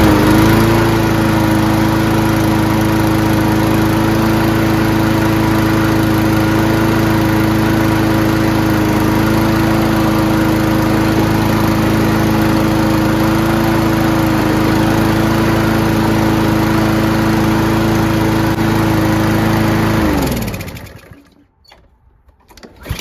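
Honda-engined Troy-Bilt TB240 walk-behind mower running at a steady speed just after starting, then winding down and stopping about twenty seconds in.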